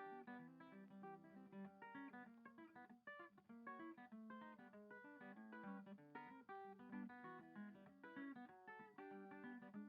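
Quiet background music: an acoustic guitar playing a steady run of plucked notes.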